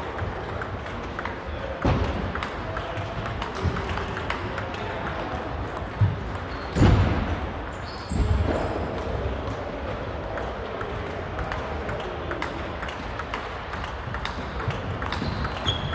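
Table tennis balls clicking off bats and the table in repeated quick strokes, with clicks from rallies on several tables overlapping in a large echoing sports hall. A few heavier thumps stand out in the first half.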